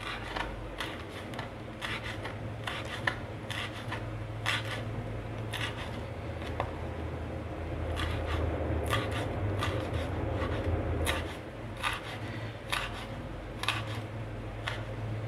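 Kitchen knife slicing green chillies into very thin strips on a wooden chopping board: a string of short, irregular cuts, the blade tapping and scraping the board.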